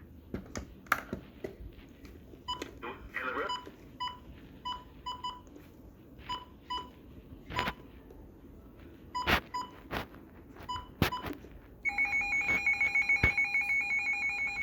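Scattered clicks and short electronic beeps, like button presses on a device, then a rapidly pulsing electronic ring starts about twelve seconds in and is the loudest sound.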